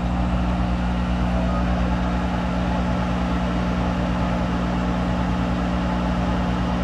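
Monarch 10EE toolroom lathe running with its spindle turning: a steady hum of several fixed tones that holds constant throughout.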